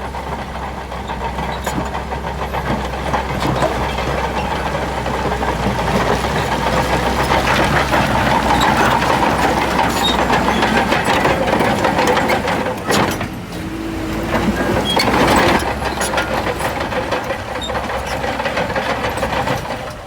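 Bulldozer's heavy diesel engine running under work, its level swelling through the middle, dropping briefly about two-thirds through, then rising again, with many small clicks and knocks over it.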